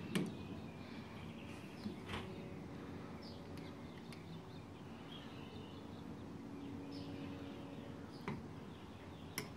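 Quiet outdoor ambience with faint bird chirps, and a few light plastic clicks from handling a dish soap bottle's flip cap and a plastic measuring spoon, the first just after the start and more near the end.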